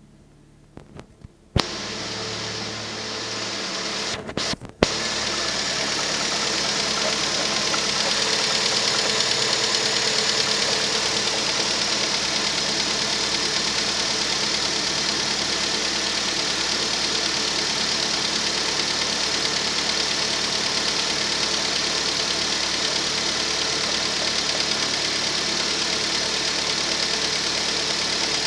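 Rover 25 1.4 K-series four-cylinder petrol engine cold-started: a few clicks, a steady lower hum from about two seconds in, then a sharp jolt about five seconds in, after which the engine idles steadily. The idle carries the ticking of the hydraulic tappets, normal when cold, and a slight misfire that the owner traced to a faulty lambda (O2) sensor.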